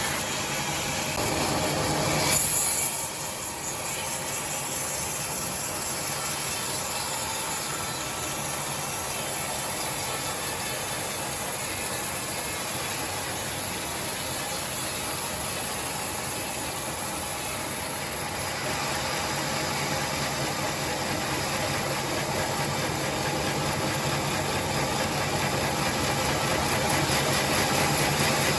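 Sawmill machinery running steadily: a motor hum under a wide mechanical noise, with a brief louder burst about two seconds in.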